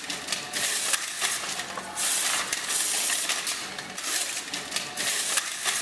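Drapes being drawn open: a series of sliding, hissing noises in repeated uneven strokes.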